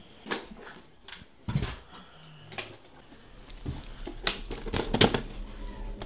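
A series of sharp clicks and knocks as small objects are handled and set down, with the loudest cluster a little past four seconds in. A low steady hum comes in about three seconds in.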